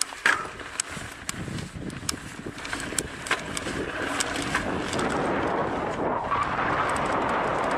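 Mountain bike riding down a dirt trail: tyre and wind noise with frequent sharp clicks and rattles, growing louder about five seconds in.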